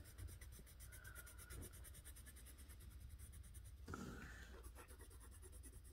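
Near silence with faint scratching of a colouring tool across paper as a drawing is shaded in.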